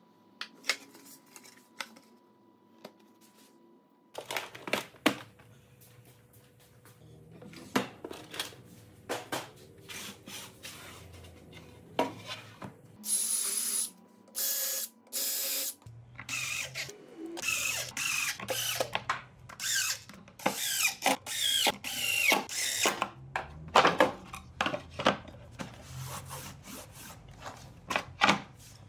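Workshop sounds of wood and tools being handled, a string of knocks and clicks. Twice, about halfway through, a power tool runs steadily for a second or two.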